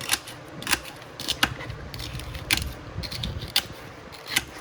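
Irregular sharp clicks and taps, about eight of them, from handling celery while packing a pickle jar.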